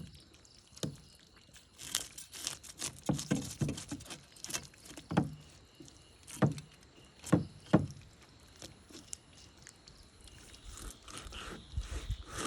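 A knife chopping and scraping fish on a cutting block: irregular thuds of the blade striking through, with lighter scraping between them.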